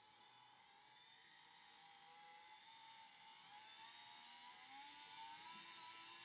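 Small electric motor of a rotary film processor running, turning a developing tank on its rollers with a faint whir. The pitch and loudness rise gradually as it speeds up.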